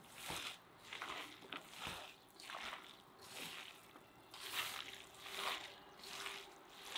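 Hands kneading and squeezing minced meat with chopped onion and spices in an aluminium basin to mix the manty filling: wet squishing, one squeeze about every half second to a second.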